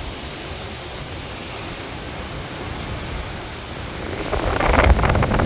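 Steady rush of storm wind, then from about four seconds in, stronger gusts buffeting the microphone with a low rumble, getting louder.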